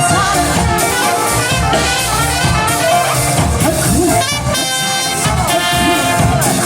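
Music led by brass instruments, in a jazz style.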